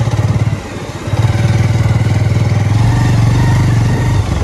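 Motorcycle engine running at low riding speed, its firing pulses steady; the throttle eases off about half a second in and opens again about a second in.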